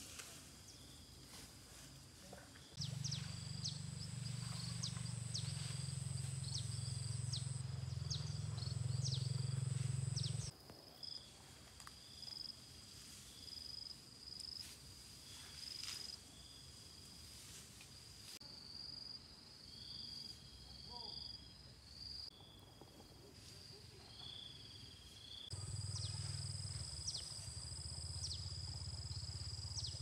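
Outdoor country ambience: a steady high insect drone with short bird chirps. A low steady hum comes in twice, for several seconds each time, starting and stopping abruptly; it is the loudest sound.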